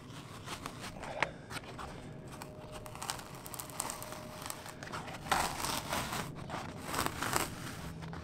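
Glued fabric skin (poor man's fiberglass) being peeled by hand off a plywood panel, giving several short tearing, crinkling pulls.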